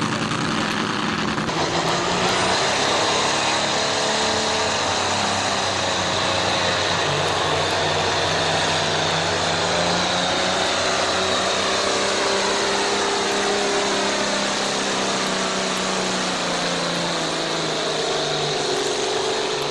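Pulling tractor's diesel engine running hard under full load as it drags a weight-transfer sled, a loud, steady drone with the pitch holding nearly level.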